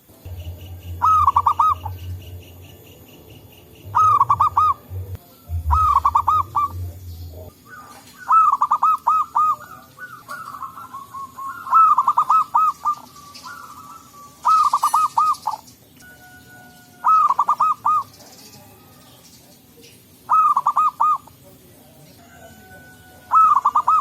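Zebra dove (perkutut) cooing: short phrases of quick, rippling coo notes repeated about every two to three seconds. A low rumble runs under the first several seconds, and faint chirps of other birds are in the background.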